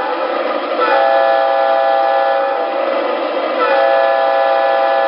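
Model diesel locomotive sound system of an MTH Premier O-gauge GE ES44AC sounding two long horn blasts over its steady diesel engine sound. The first blast starts about a second in and the second starts past the middle and is still going at the end.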